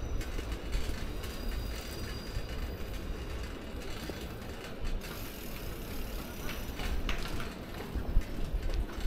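Steady rumble of wind and road noise from a bicycle being ridden along a paved path, with a few brief clicks and rattles about seven seconds in.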